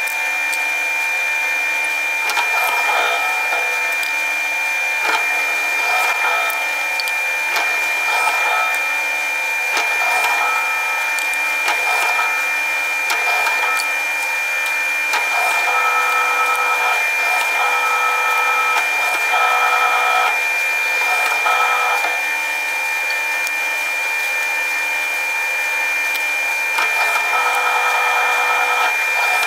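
Bench drill press running steadily with a constant high motor whine while a small drill bit bores the thread holes through wooden buttons. Short clicks and knocks come as the wooden discs are set down and moved on the steel jig.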